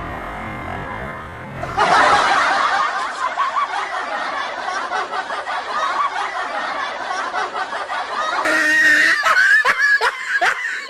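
Laughter that comes in abruptly about two seconds in and changes sharply again near the end, where it turns into a quick run of short rising laughs, about three a second.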